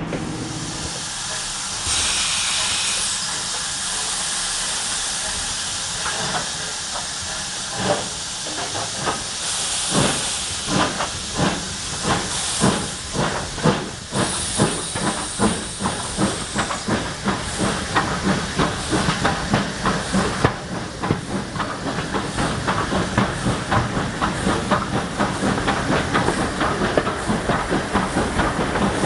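Steam locomotive hauling the train, heard from a carriage window: loud bursts of steam hiss, and a run of sharp beats that grow quicker as the train picks up speed.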